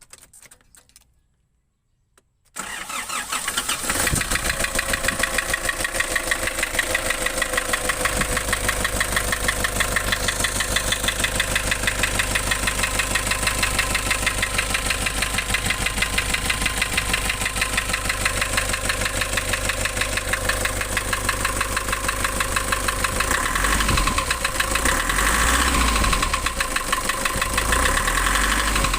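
Nissan Urvan's ZD30 3.0-litre four-cylinder diesel engine starting about two and a half seconds in, then idling steadily with a fast, even pulse.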